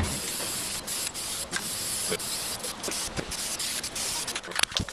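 Aerosol spray paint can hissing steadily in spurts, with scattered light clicks and a sharp knock near the end.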